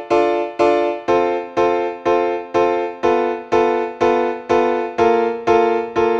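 Background music: keyboard chords struck evenly about twice a second, each fading before the next.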